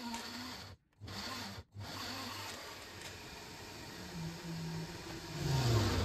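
Countertop blender running, grinding peeled garlic cloves into a purée, with two short breaks in the sound near the start.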